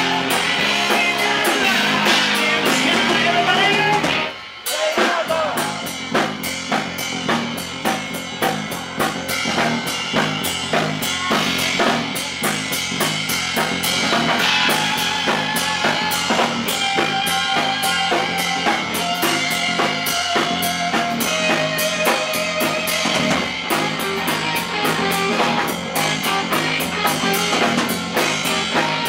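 Live rock band playing electric guitars, bass and drum kit, heard from on stage through the amps and monitors rather than the mixed PA. The music breaks off briefly about four seconds in, then comes back with the drums keeping a steady beat under the guitars.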